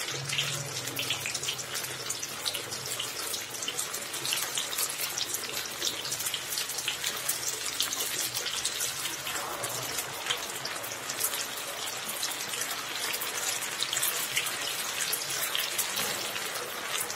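Crumb-coated chicken pieces deep-frying in a karahi of very hot oil: steady, dense sizzling with constant fine crackling of bursting bubbles.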